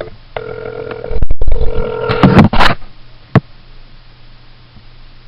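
Telephone call-progress tone heard through a phone's speaker while an outgoing call is placed. The tone sounds twice in the first half, broken by loud clicks and handling knocks on the handset.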